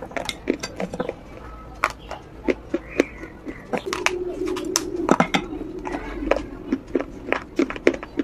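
Close-up chewing of a crunchy biscuit bowl, with many sharp, irregular crunches and mouth noises. A steady low hum runs underneath for a few seconds in the middle.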